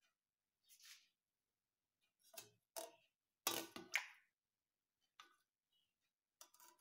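Faint scattered light clicks and taps, a handful of them, the loudest a quick cluster about three and a half seconds in.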